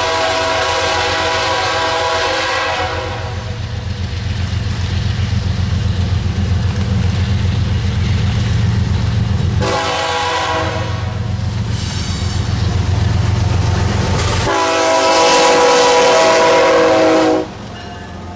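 Diesel locomotive air horn sounding a chord in blasts as an Iowa Interstate GE ES44AC approaches and passes: one ending about 3 s in, another about 10 s in, a brief one about 12 s in, and a last long one that cuts off sharply near the end. Under it runs the low, rhythmic throb of the locomotive's diesel engine, then the clatter of tank cars rolling past.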